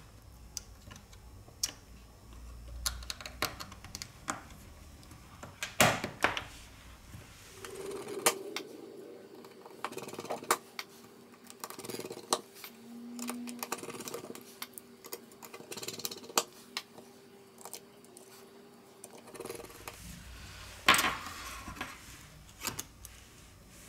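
Irregular light clicks and taps of small tools and plastic and metal smartphone parts being handled, with two sharper knocks. A faint steady hum runs through the middle stretch.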